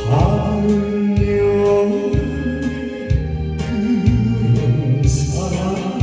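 A man sings a Korean trot song into a handheld microphone, his voice wavering with vibrato, over a karaoke backing track with a steady low beat.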